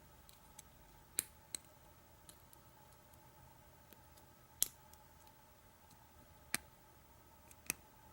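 Faint, irregular clicks of a lock pick and tension wrench working the pin stack of a five-pin MDK brass padlock while it is single-pin picked, about seven sharp clicks spaced a second or two apart.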